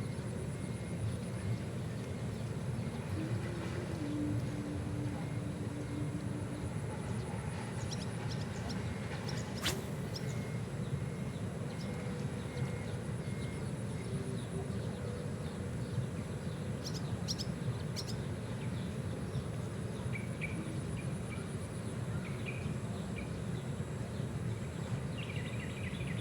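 Steady outdoor background noise, mainly a low rumble, with faint high insect calls over it and one sharp click about ten seconds in.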